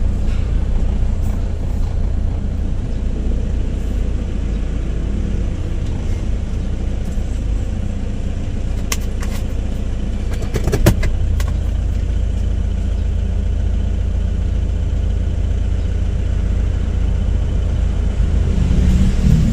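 Car being driven: a steady low rumble of engine and road noise, with a few sharp clicks about nine and eleven seconds in.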